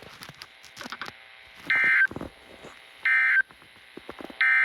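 Three short bursts of Emergency Alert System SAME digital data, each about a third of a second long and about 1.4 s apart. This is the end-of-message code that closes a warning broadcast.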